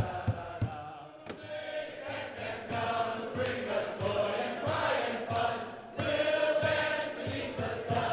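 A group of voices singing together over music with a steady beat.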